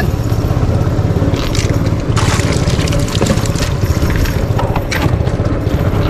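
A small engine running steadily with a fast low throb, and a few brief knocks or scrapes over it.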